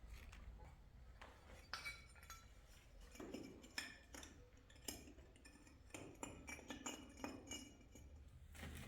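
Faint, scattered clinks and taps of small hard objects, several with a brief ringing tone, over a low steady hum.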